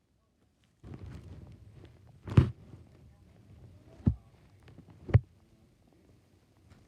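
Human stomach growling: a low rumbling gurgle starting about a second in, then three sharp thumps, the first the loudest.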